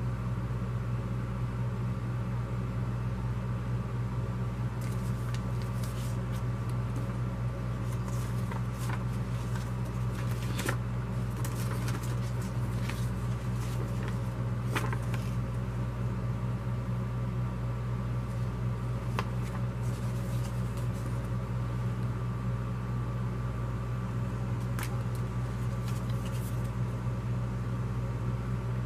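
A steady low hum, with scattered soft crackles and clicks of paper flyers and cards being handled through the middle.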